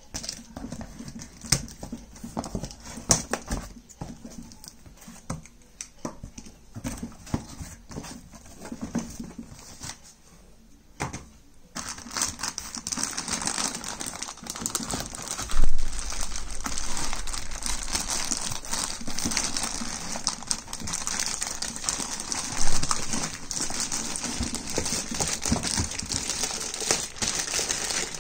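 A cardboard box being opened: a knife scrapes and clicks through the packing tape and flaps. From about twelve seconds in there is steady crinkling of plastic wrapping as the parts are handled, with a thump around sixteen seconds.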